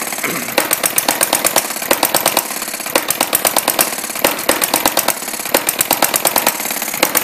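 Small model oscillating-cylinder hit-and-miss engine running at its set speed: a fast, even clatter from the mechanism, with louder firing beats every half second to a second as it goes in and out of hit and miss. The drum-like benchtop under it makes it sound louder.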